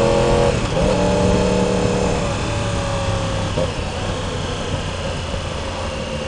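2016 Yamaha R1's inline-four running through an aftermarket slip-on exhaust with the catalytic converter still in, the exhaust note still fairly low. The note breaks briefly about half a second in, then falls slowly as the throttle closes and fades under wind and road noise by about two seconds in.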